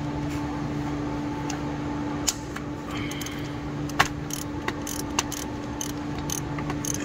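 Scattered sharp clicks and knocks of a ratchet and 12 mm socket working the bolts on the A/C compressor's refrigerant lines, over a steady low hum.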